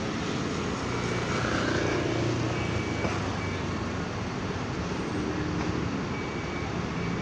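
Large intercity bus engines running at a terminal exit over steady traffic noise. A low engine hum swells over the first two seconds and then eases.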